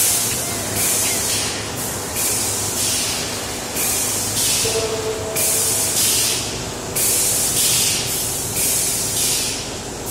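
Pneumatic bulk-bag filling station running: a steady rush of air with short bursts of compressed-air hiss repeating about once a second while powder fills the lined bag. A brief two-note tone sounds about halfway through.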